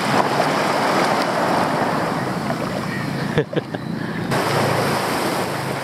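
Small waves washing in over a sandy beach, a steady rush of water with wind on the microphone.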